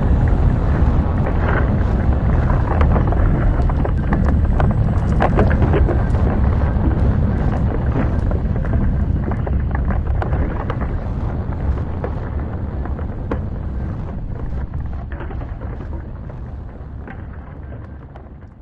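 Sound-designed ambience of a deep, steady rumbling with scattered grinding, cracking rock sounds, fading out over the last several seconds.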